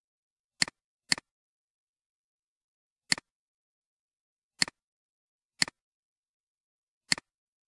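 Six computer mouse clicks, each a sharp press followed at once by a quieter release, with silence between them. The first two come half a second apart as a double-click.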